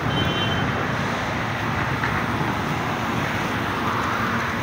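Road traffic: a steady, even rush of cars driving on a wide city road.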